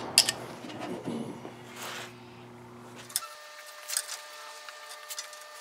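A few sharp metal taps of pliers used as a hammer, driving a small nail into a wooden board, the loudest at the very start. Later come fainter scattered clicks of wire baskets being handled.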